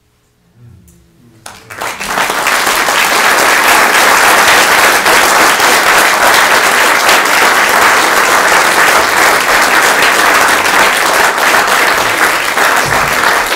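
After a brief quiet moment, a seated concert audience breaks into applause under two seconds in. The clapping stays loud and steady.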